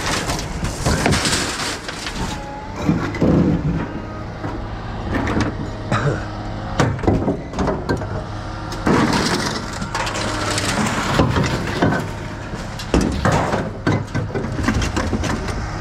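Scrap metal being unloaded by hand from a pickup bed: tangled chain-link fencing scraping and rattling as it is dragged off, with irregular clanks and bangs of metal parts. A steady low hum runs underneath.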